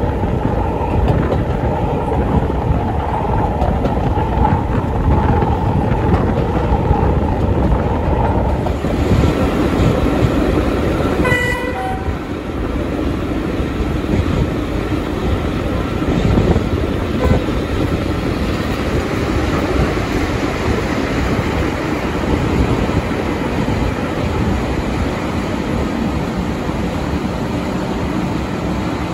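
Passenger train on the move, heard from a coach behind the Class 31 diesel locomotive: a steady rumble of wheels on rail, with a steady higher tone over it for the first eight seconds or so. About eleven seconds in, the locomotive's horn gives one short blast.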